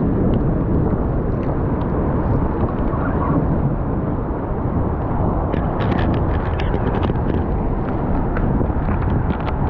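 Strong wind buffeting the microphone: a steady low rumble. Irregular light clicks are scattered through the second half.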